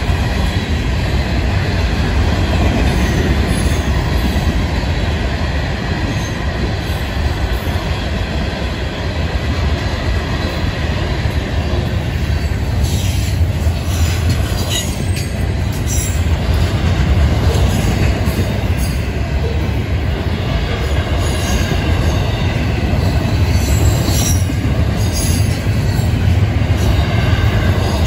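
A freight train's cars rolling past close by, steel wheels on rail making a steady heavy rumble as hopper cars give way to double-stack container well cars. A few sharp clanks come about halfway through and again near the end.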